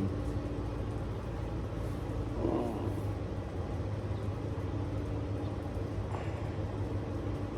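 Steady low mechanical hum, with a faint short voice-like sound about two and a half seconds in.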